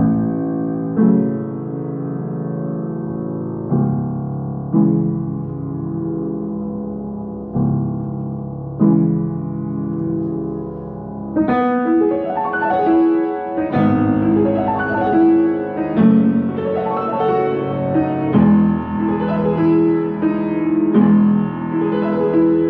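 Solo piano music: slow, sustained chords struck about once a second, then, about halfway through, a busier, brighter passage of quicker notes over the chords.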